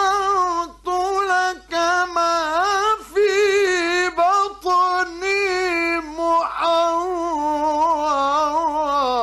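Male Quran reciter's voice in melodic mujawwad recitation. It sings long, ornamented phrases whose pitch wavers and bends, broken by short pauses.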